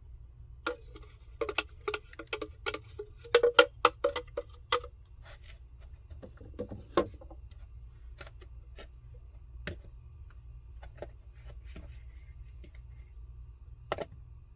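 Rapid clicks and knocks of a utensil tapping against a hard container while blended dry ingredients are emptied into a bowl. The tapping is densest in the first five seconds, then thins to a few scattered taps.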